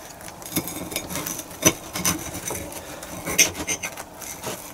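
A knife sawing through a crisp toasted sandwich, the crust rasping and scraping, with two sharp clicks of the blade against the plate about a third and two thirds of the way through.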